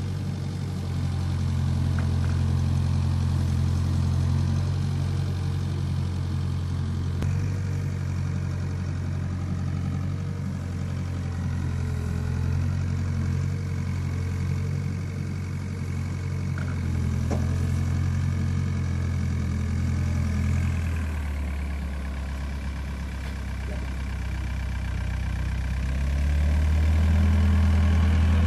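Doosan wheeled excavator's diesel engine running steadily. Its pitch drops about three-quarters of the way through, then rises and gets louder near the end as the machine pulls away.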